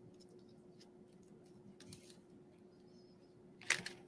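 Faint rustling and crinkling of a clear plastic sheet as hands press it down over leaves, with a louder crinkle near the end. A low steady hum runs underneath.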